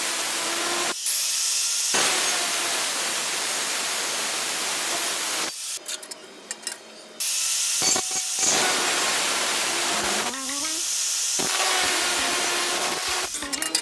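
Welding arc, probably MIG, sizzling and crackling in runs that stop and restart three times, with brief crackly pauses between beads.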